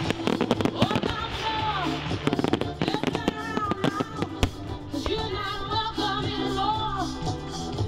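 A song with a singing voice plays over a steady beat while aerial firework shells burst and crackle, the bangs coming thickly in the first half and more sparsely later.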